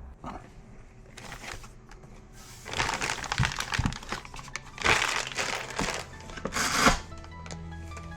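Background music with three bursts of crinkling and rustling, as something in the soldering-station box is handled, about three, five and six and a half seconds in.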